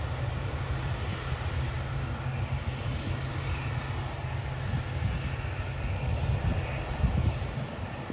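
Distant aircraft engine noise, a steady rumble and hiss, with wind buffeting the microphone.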